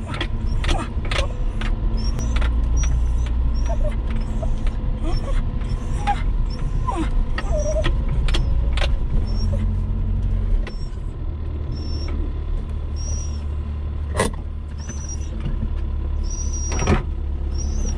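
Toyota Corolla KE70's four-cylinder engine pulling the car along slowly in first gear, heard from inside the cabin as a steady low drone with rattles and clicks and a faint high squeak repeating about every two-thirds of a second. The drone eases about ten seconds in, and two sharp knocks come near the end.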